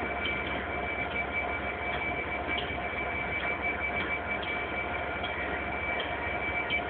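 Steady hum of trains standing at a station platform: a continuous drone with a constant high whine and scattered faint clicks.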